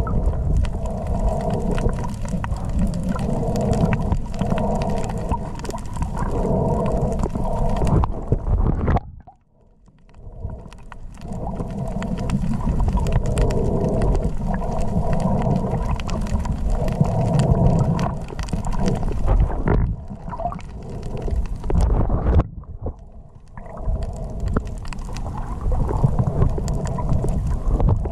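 Muffled underwater rumble and water noise picked up by an action camera in its waterproof housing as a diver swims over the reef. It cuts out suddenly about nine seconds in, builds back up, and dips again briefly later on.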